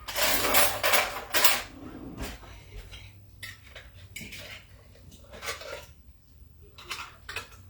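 Kitchen dishes and utensils clattering: a dense rattle for the first second and a half, then scattered clinks and knocks.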